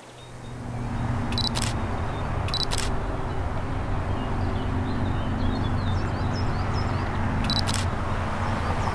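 Camera shutter clicks, three times, each a quick double click: about a second and a half in, near three seconds, and near the end. Under them a steady low rumble swells in over the first second.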